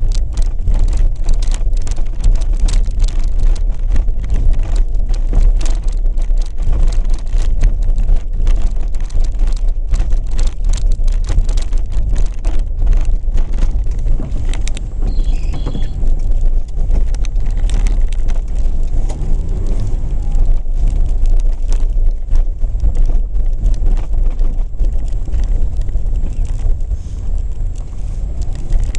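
Opel Kadett E Caravan driving slowly over a snow-covered street, heard from inside the cabin: a steady low rumble of engine and tyres, with a continuous crackle of the tyres on packed snow.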